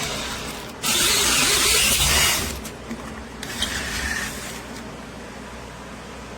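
Power drill driving an auger bit into wood in two short bursts: a louder one of about a second and a half, then a shorter one of about a second.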